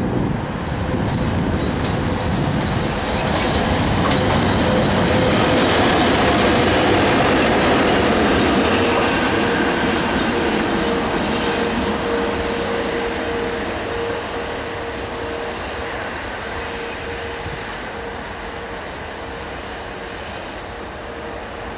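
VL80T twin-section AC electric locomotive running light through a station: wheels rumbling and clacking over the rails, loudest as it passes about six to eight seconds in, then fading as it moves away, with a steady whine under it.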